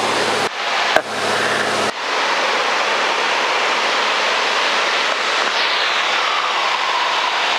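Steady rushing cabin noise of a light experimental aircraft in cruise flight: engine, propeller and airflow. A faint tone slides slowly down in pitch near the end.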